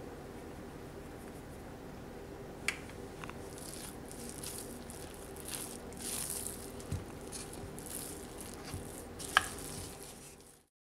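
A wooden spatula stirring flour into a sticky ground-chicken mixture in a bowl: soft squishing and scraping swishes from about four seconds in, with a few sharp clicks, the loudest near the end, over a steady low hum. The sound cuts off suddenly just before the end.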